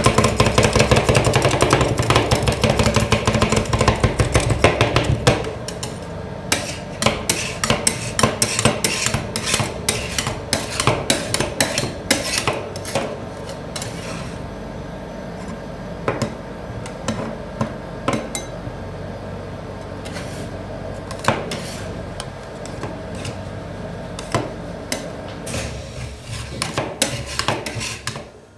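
Two steel spatulas chopping and tapping on a frozen stainless-steel cold plate as they work a liquid ice cream mix: a fast, dense clatter for about the first five seconds, then slower, scattered knocks and scraping over a steady hum.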